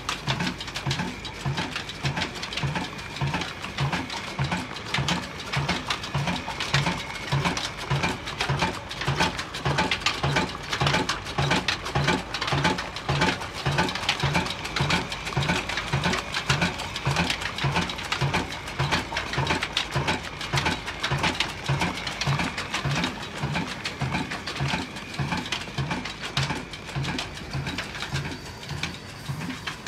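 Old black stationary diesel engine running at a slow, steady beat, about two low thumps a second, over a busy mechanical clatter from the valve gear and moving parts.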